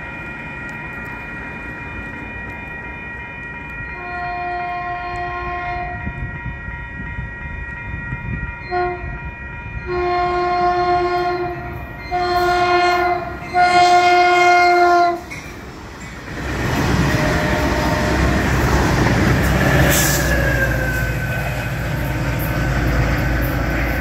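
Caltrain locomotive's multi-note air horn sounding a series of blasts as the train approaches: a long one, a brief tap, then long, short, long. The train then comes through with a loud rumble and a falling whine.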